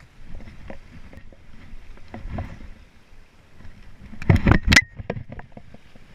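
A kayak paddle working in the water, with scattered knocks and splashes and a short burst of loud knocks and splashing about four seconds in.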